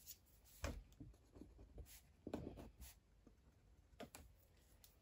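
Pen on notebook paper marking dots and a line under a written word: a few faint, short scratches and taps.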